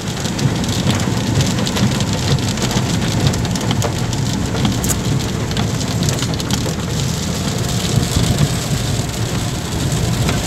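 Heavy rain hitting a moving car, a dense patter of many small drop impacts over a steady low rumble of the car on the road.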